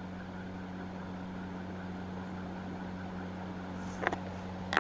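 Steady low hum and hiss of a gas stove burner heating an iron tawa, with two short clicks near the end.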